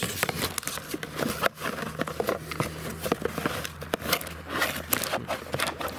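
Cardboard box and plastic packaging being handled: irregular crinkling, rustling and small clicks, over a steady low hum.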